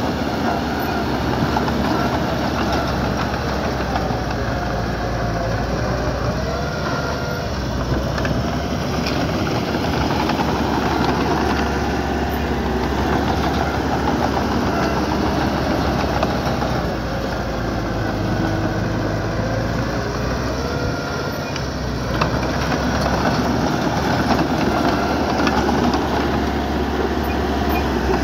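Diesel engine of heavy earthmoving machinery running continuously, its level swelling and easing slightly as it works.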